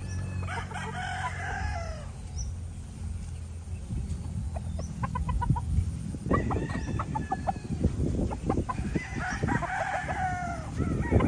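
Gamecock stags crowing: one long crow about a second in and another near the end, with clucking in between.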